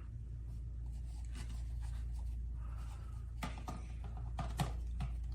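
Plastic parts of a cordless stick vacuum being handled: light rubbing and a few faint small clicks over a steady low hum.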